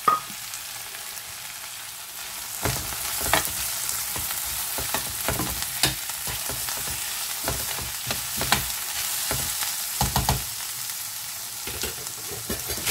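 Onions, tomato and ginger-garlic paste sizzling in ghee in a stainless steel pot. From a couple of seconds in, a metal utensil stirs the mix with repeated scrapes and knocks against the pot, easing off near the end.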